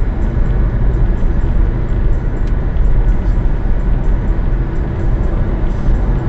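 Steady low road and tyre rumble with engine hum inside a car's cabin cruising at highway speed, about 85 km/h.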